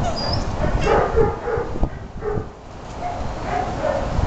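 Dogs barking and yipping in short repeated barks, with a quieter lull about halfway through.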